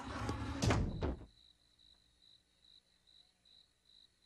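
Cartoon sound effect of a door slamming shut under a second in, at the end of a short rush of noise. After it there is only a faint steady high whine.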